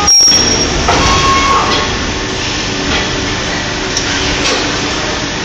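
Injection-molding machines and their servo take-out robots running on a factory floor: a loud, steady machine din with several short clanks and knocks scattered through it, and two brief thin tones in the first two seconds.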